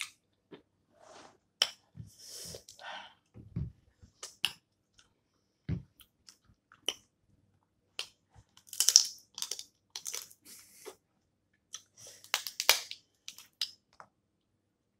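Snow crab legs being eaten close to the microphone: shells cracking and snapping in sharp clicks, with chewing. Longer crackling bursts come a little past halfway and again near the end, along with a few dull low thumps early on.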